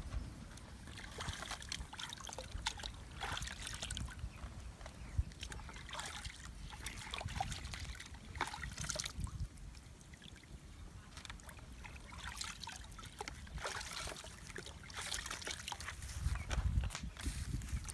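Open wood fire crackling, with irregular sharp pops and snaps from burning sticks and bark.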